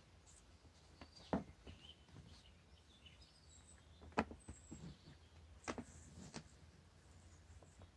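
A few soft, sharp knocks and taps as a kitten pounces and scrambles around a plastic track scratcher and a string toy, the loudest about a second in and again about four seconds in, with faint high chirps early on against a low steady hum.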